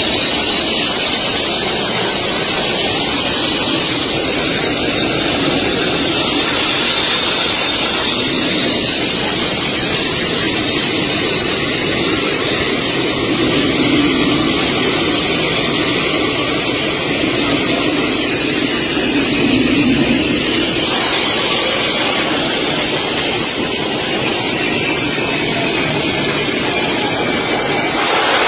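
Large jet aircraft's turbofan engines running loud and steady close by, a faint high turbine whine over a dense rush of noise, as the plane moves along the runway.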